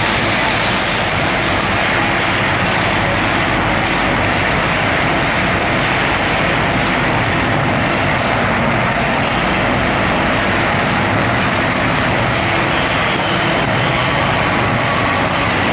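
Steady, loud machinery noise from a steel ball rolling mill line running, with its electric drive motor and gearbox turning the rolls. A faint, steady high whine runs through it.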